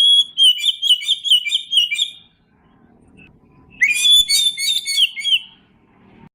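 Oriental magpie-robin (kacer) singing: two bursts of rapid, high whistled notes, the first at the start lasting about two seconds and the second starting nearly four seconds in.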